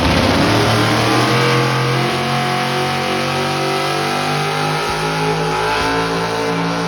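Pro Modified four-wheel-drive pulling truck's engine running loud and steady at the line, its pitch dipping slightly about two seconds in and then holding.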